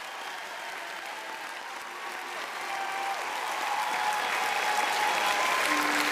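Crowd applause, growing steadily louder toward the end.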